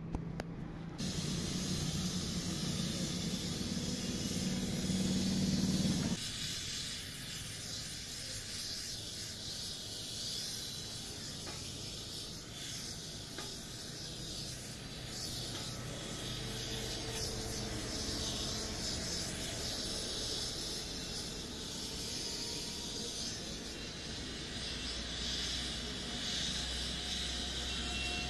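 Gas welding torch flame hissing steadily while it welds aluminium. For the first few seconds a louder, lower steady rumble runs under it and stops suddenly about six seconds in.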